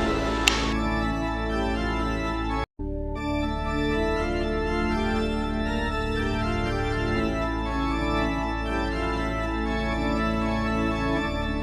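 Organ music: sustained chords held over a steady low drone. It drops out completely for a moment about three seconds in.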